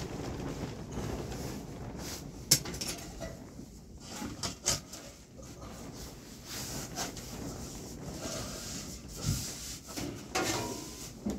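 Sheet-metal stovepipe sections being handled and pushed up into a roof opening. Scraping and rubbing with irregular knocks, and one sharp clank about two and a half seconds in.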